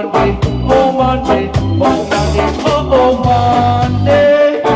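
Live reggae band playing a heavy bass line under a steady drum beat, with held melody notes over the top.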